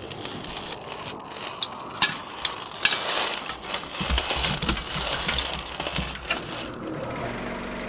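Vintage film projector's mechanism clicking and rattling, with two sharp clicks around two and three seconds in. Near the end its motor starts and runs with a steady hum.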